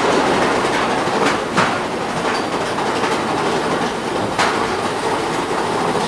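Big Thunder Mountain Railroad mine-train roller coaster rattling steadily along its track, heard from aboard a car. Three sharp clacks stand out: two close together about a second and a half in, and one more past four seconds.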